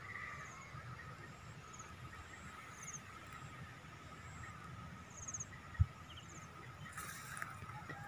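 Countryside ambience of birds and insects: a steady thin drone with short high chirps repeating now and then. A low wind rumble runs underneath, with a single dull bump a little before six seconds and a gusty rush near the end.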